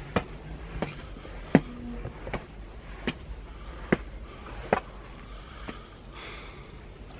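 Footsteps of a person walking, sharp steps landing roughly every 0.8 seconds over a low steady rumble.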